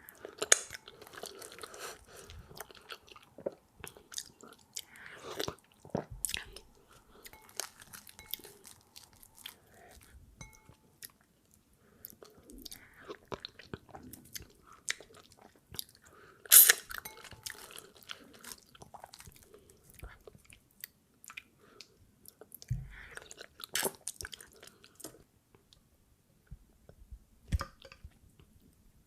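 Close-up eating sounds of fufu being chewed and swallowed, in irregular bursts of small clicks, with one sharp louder sound a little past halfway.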